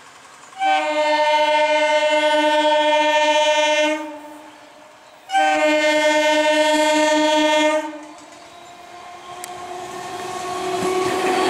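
Electric multiple-unit local train sounding its horn in two long blasts, the second after a short gap. The running noise of the approaching train then grows steadily louder as it nears the crossing.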